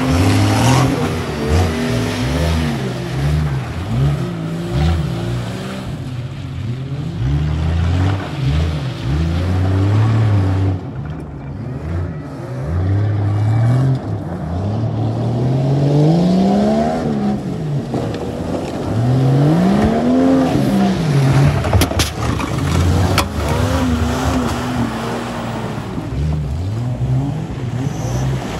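Jeep Cherokee XJ engine revving hard, its pitch rising and falling again and again as the Jeep slides around on wet mud.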